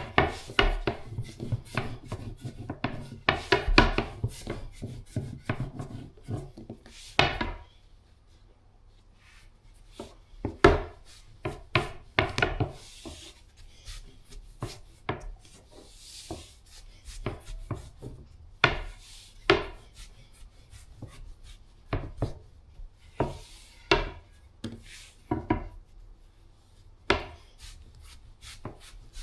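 Dough being rolled out into dumpling wrappers with a wooden rolling pin on a wooden board: irregular knocks and clacks, with rubbing and rolling between them. The knocks pause briefly about eight seconds in.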